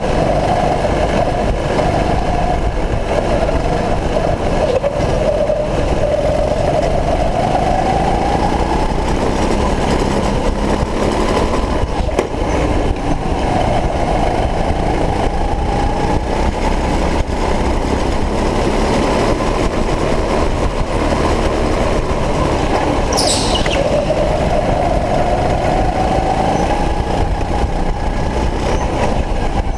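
Racing go-kart engine running hard, its pitch climbing and dropping slowly as the kart speeds up and slows through the corners, over a heavy rumble. A brief high squeal cuts in once, late on.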